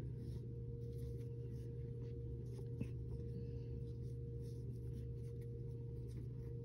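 Faint rustling and small clicks of a shoelace being handled and pulled through a knot, with one slightly sharper click near the middle, over a steady low hum.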